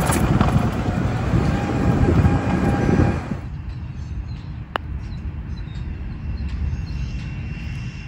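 A loud steady rushing rumble that cuts off suddenly about three seconds in. It gives way to quieter outdoor ambience, with a single sharp click of a putter striking a golf ball nearly five seconds in.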